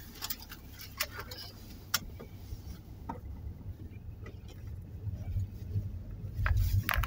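Car running, heard from inside the cabin: a steady low engine and road rumble with scattered sharp clicks and ticks. The rumble grows louder about five seconds in.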